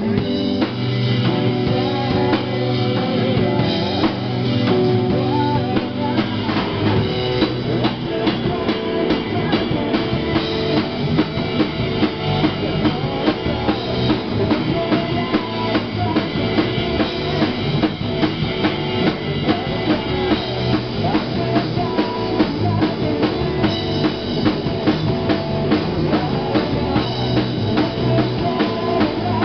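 Live rock band playing without vocals: electric guitar over a drum kit keeping a steady beat.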